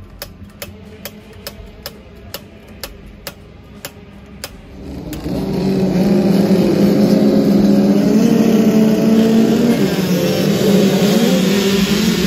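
A pack of small two-stroke youth motocross bikes revs hard off the start line and accelerates away together. The engine pitches rise and overlap, starting about five seconds in and staying loud. Before that there is only a faint, steady ticking, about three clicks a second.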